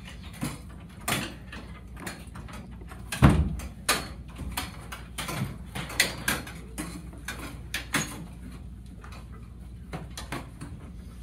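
Classroom furniture being shoved into place as a barricade against a door: a string of knocks, bumps and clatters from table and chair legs and the door, with one heavy thump about three seconds in.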